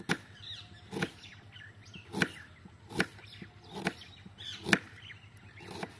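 Kitchen knife slicing a red onion on a bamboo chopping board, each cut ending in a sharp tap of the blade on the board, about one a second, seven in all.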